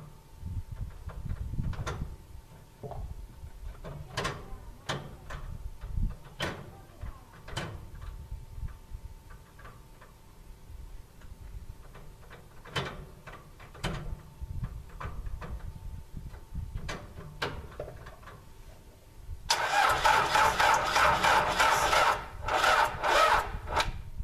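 Starter cranking the freshly rebuilt four-cylinder diesel of a Case 580C tractor loader on a low battery, turning it over unevenly without it catching. Near the end comes a loud hissing rush lasting about four seconds, briefly broken once.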